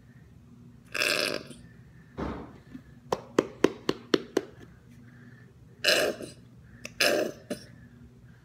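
A boy making loud, harsh throat noises in several separate bursts, with a quick run of about seven sharp clicks in the middle.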